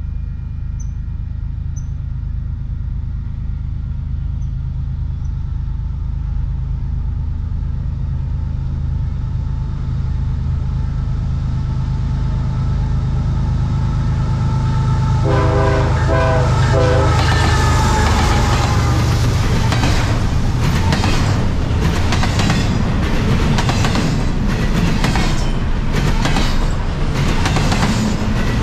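Freight train approaching on diesel locomotives, the engines' low drone growing louder, then a horn blast of about a second and a half just past halfway. The locomotives and cars then pass close by, wheels clattering rhythmically over the rail joints.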